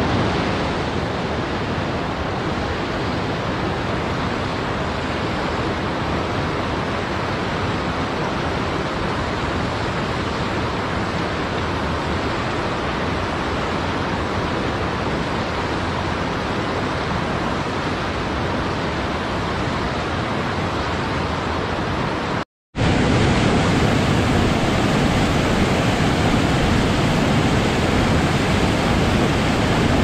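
Steady rush of water from a mountain river tumbling over a small rocky cascade. After a brief break about two-thirds of the way through, a louder, lower rush of a waterfall pouring between boulders takes over.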